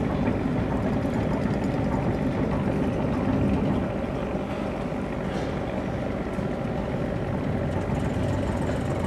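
Veteran wooden boat's engine idling alongside the quay: a steady low engine drone that is slightly louder for the first four seconds or so.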